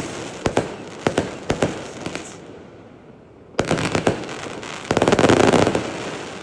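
Fireworks going off: a run of sharp cracks with crackling for about two seconds, a short lull, then a fresh, denser barrage of cracks and crackling that is loudest near the end before fading.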